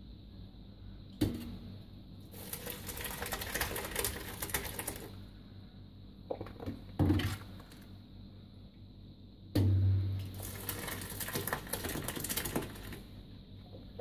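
A metal cezve knocking against a steel pot as it scoops curds and whey, then the curds and whey pouring and splashing into a cloth cheese bag; this happens twice, with a knock about a second in, near 7 s and near 10 s, and pouring between.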